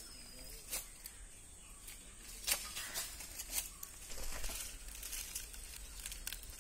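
Dry leaf litter rustling and crackling in short, scattered bursts, with a denser stretch of rustling a little past the middle, as it is disturbed underfoot and by a stick and a moving monitor lizard.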